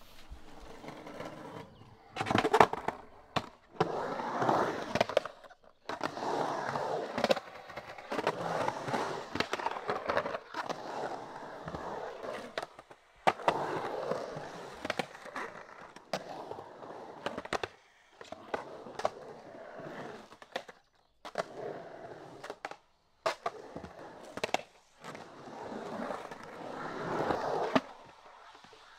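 Skateboard rolling and carving through a concrete bowl in several runs. The wheels' rolling noise rises and falls, broken by sharp clacks of the board, with the loudest clack about two and a half seconds in.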